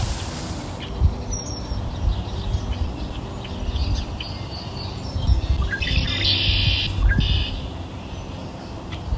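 Birds chirping and calling over a steady low background noise, with a busier run of calls about six to seven seconds in.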